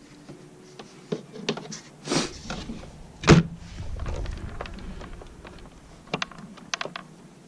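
Handling noises: scattered clicks, a brief scrape about two seconds in, and a loud thump a little over three seconds in followed by a low rumble, then a few more clicks near the end.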